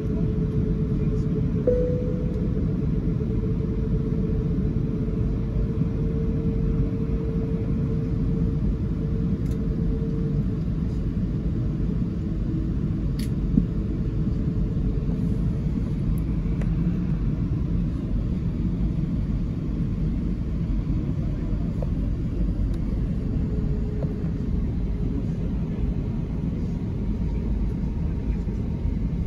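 Steady low rumble inside the passenger cabin of an Airbus A380 as it taxis, with a thin steady hum at mid pitch through roughly the first third and a single sharp click about halfway through.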